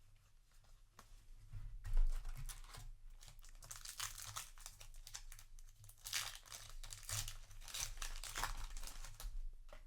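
Foil booster pack wrapper crinkling and tearing as a trading-card pack is opened, in several bursts. The first and loudest comes about two seconds in.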